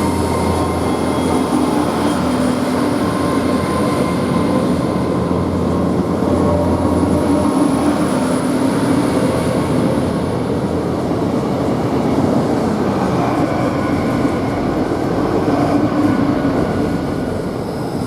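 Great Western Railway Class 802 bi-mode train pulling out, its underfloor diesel engines and traction running steadily, with a faint high steady whine that fades about midway.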